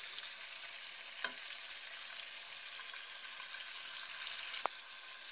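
Pieces of mutton frying in oil with onions in a pot, giving a steady sizzle. There are two short clicks, one about a second in and a sharper one near the end.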